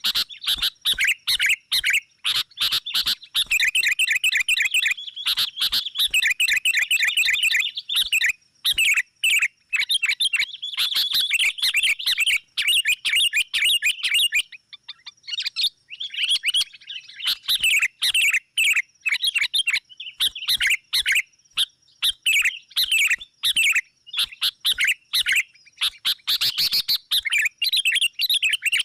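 Sooty-headed bulbuls calling noisily in a dense, rapid stream of chirps, with a brief pause about halfway. It is a lure call used to draw wild bulbuls in.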